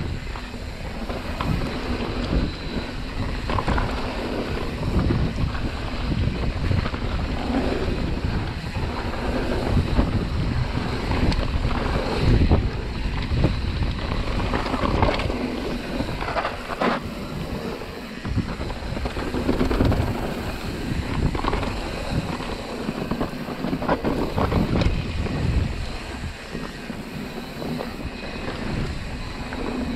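A mountain bike rolling fast down a dirt singletrack, heard through an action camera's microphone. Wind buffets the microphone and the tyres rumble over the ground, with frequent knocks as the bike goes over bumps.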